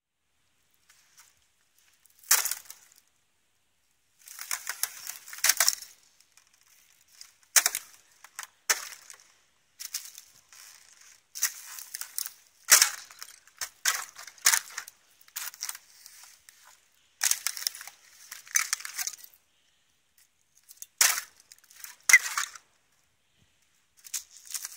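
Thin sheet ice over a shallow puddle cracking and shattering under a rubber boot. There are about a dozen irregular sharp cracks and crunching breaks, with short quiet gaps between them.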